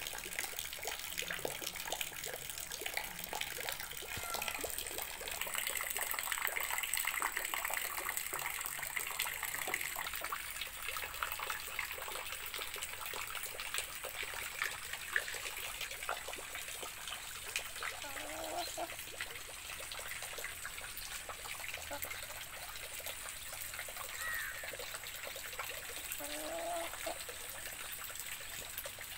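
Steady rain falling, a dense patter of drops with water trickling and splashing.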